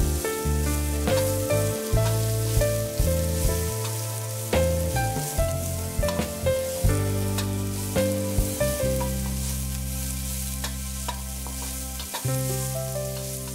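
Sliced onions sizzling in hot oil in a wok as they are stirred with a wooden spatula. Instrumental background music with a melody over a low bass line plays throughout.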